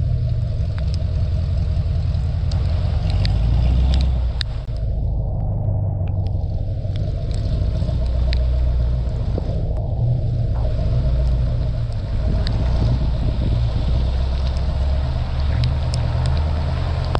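Low, steady engine and exhaust rumble of cars crawling at low speed, with scattered sharp ticks of raindrops on the microphone.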